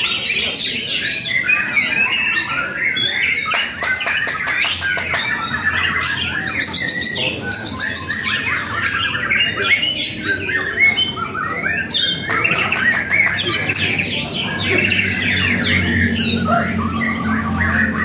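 Many caged songbirds singing at once, their chirps and calls overlapping in a dense, unbroken chorus.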